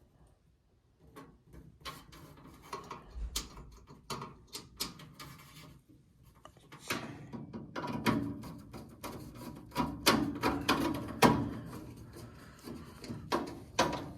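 Hand tools and metal furnace parts being handled: a run of irregular clicks, knocks and scraping, with a short pause about halfway through.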